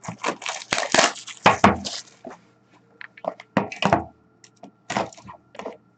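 A sealed box of hockey cards being torn open and its packaging handled: a quick run of crackling rips in the first two seconds, then scattered softer clicks and rustles.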